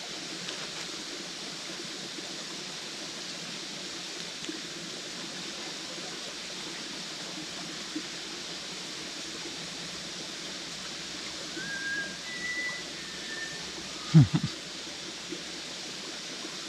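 Steady outdoor background hiss, with a bird giving a few short high whistled notes past the middle and two low thumps a couple of seconds later.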